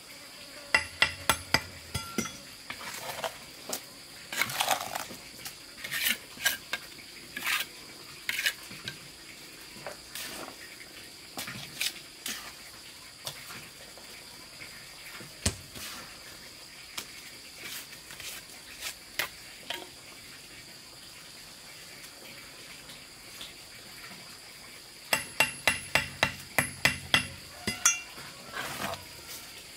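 A mason's trowel clinking and scraping against concrete blocks and cement mortar as blocks are laid, with quick runs of sharp taps near the start and again near the end. A steady high drone of insects runs underneath.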